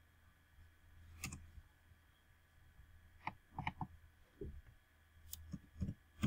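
Computer mouse clicks and keyboard keystrokes: about ten short, sharp clicks, one near the start of the second second and the rest in a loose run through the second half, over a faint low hum.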